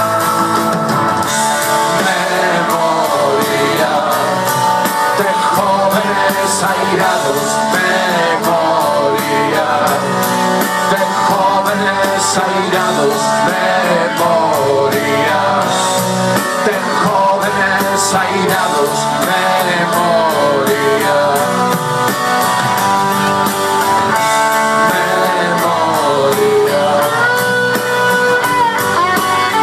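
Rock band playing live through a concert sound system, electric guitars to the fore over drums.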